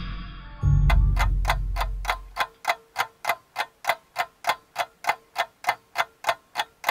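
Clock ticking, about three and a half even ticks a second, following a low rumble that fades away over the first couple of seconds.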